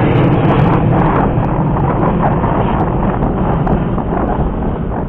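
Wind rushing and buffeting on the microphone, loud and easing off gradually, with no clear engine note standing out.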